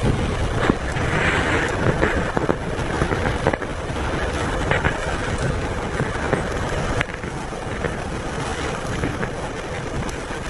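Heavy rain on a car's roof and windshield, heard from inside the moving car: a steady rush of noise over the car's road noise, with scattered sharp taps.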